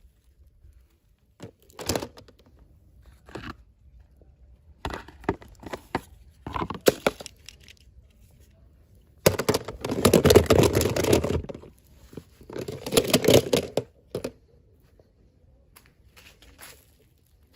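Packaging being torn open and crinkled in a series of short bursts, the longest and loudest about nine seconds in, with another about thirteen seconds in.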